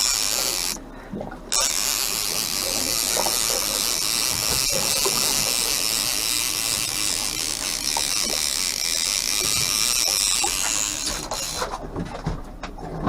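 Fishing reel ratcheting steadily while a hooked salmon is played on the line. It stops briefly about a second in and thins out near the end.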